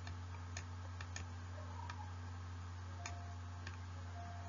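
Faint, sparse, irregular clicks of a stylus tapping on a pen tablet while writing, over a steady low hum.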